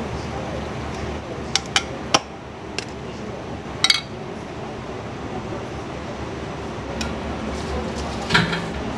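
Kitchen utensils and dishes clinking against ceramic bowls and steel: scattered sharp clinks, several in the first four seconds and another near the end, over steady background kitchen noise.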